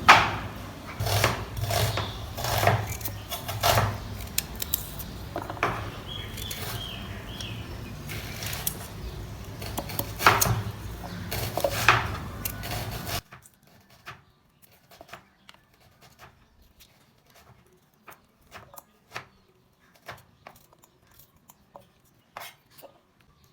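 Kitchen handling noise: scattered knocks and clinks of dishes and utensils over a low hum, cutting off abruptly about thirteen seconds in, after which only faint occasional clicks remain.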